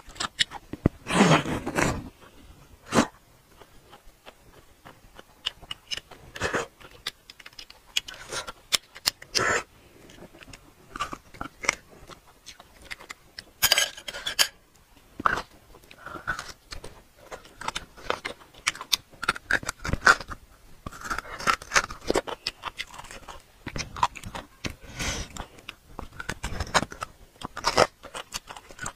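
Close-miked eating sounds: marrow being scraped from braised marrow bones with a utensil, then chewed and sucked from the bone. Irregular clicks, crunches and wet mouth sounds, with a louder burst about a second in.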